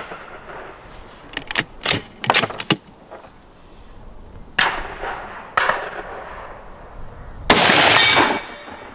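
Savage 110 Tactical .308 bolt-action rifle session: a quick run of sharp metallic clicks, then two sudden reports a second apart, and about two thirds of the way through a loud shot that rings on for about a second.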